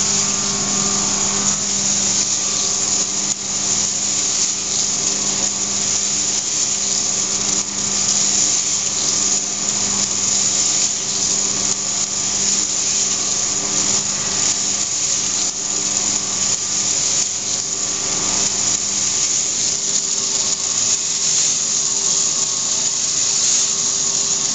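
Cafemino drum coffee roaster running at the end of a roast. Its cooling-tray agitator arms sweep freshly roasted coffee beans over the perforated tray while the fans run: a steady rushing noise with a motor hum under it.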